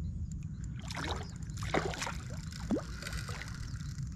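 A hooked tambaqui thrashing at the surface: a run of splashes and sloshing water for about two and a half seconds, starting about a second in, over a steady low rumble.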